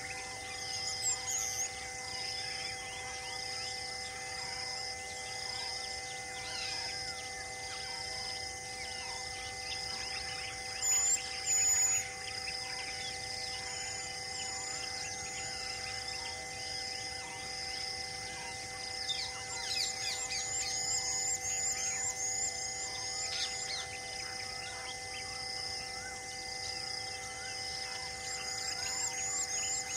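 Forest ambience: insects pulsing at about once a second over steady humming tones, with birds calling in quick high chirps, about two a second, two-thirds of the way through and again near the end. A brief, louder high call comes about a third of the way in.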